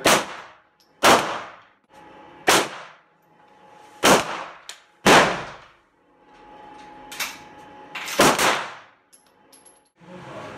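Large-calibre handgun shots on a covered pistol range: about eight sharp reports at irregular intervals, one weaker than the rest and two in quick succession near the end, each ringing off briefly.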